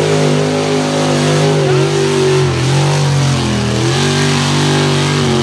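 Old Ford pickup mud truck's engine held at high revs as it powers through the mud course. The pitch stays steady, dipping briefly twice near the middle before climbing back.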